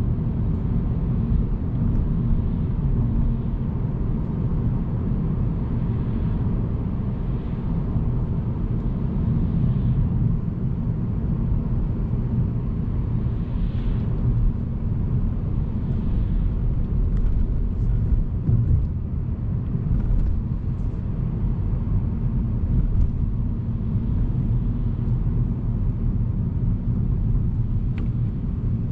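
Steady low rumble of a car being driven along a road, heard from inside the cabin.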